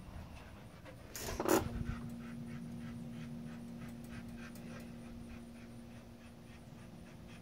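A couple of sharp knocks, like the phone being bumped or handled, about a second in, followed by a steady low hum held at one unchanging pitch for the rest of the time.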